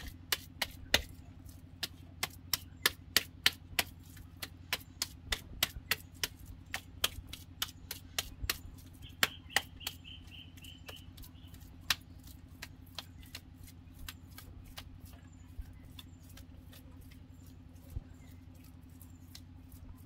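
Bare hands kneading and slapping wet mud, making sharp wet smacks and squelches several times a second that thin out to an occasional one after about twelve seconds. A steady low hum runs underneath, and a short high chirping run comes about nine seconds in.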